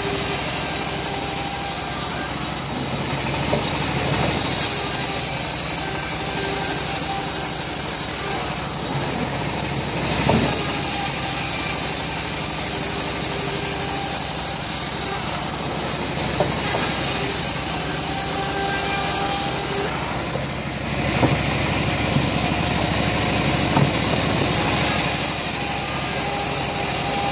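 Homemade bandsaw ripping a slab of teak heartwood: the band blade cuts steadily through the wood over the machine's running drive, with a couple of brief knocks about ten and twenty-one seconds in.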